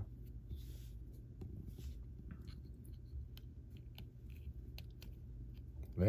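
Faint scattered clicks and scratchy rubbing from fingers handling a crimped metal terminal pin and a plastic waterproof connector housing as the pin is worked into the housing.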